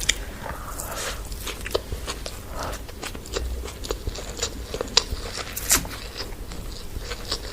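A person eating close to the microphone, biting and chewing chow mein and a chicken leg piece, with many short, irregular crunchy clicks.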